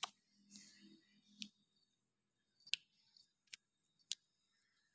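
Near silence broken by about five faint, sharp clicks, spaced irregularly about a second apart.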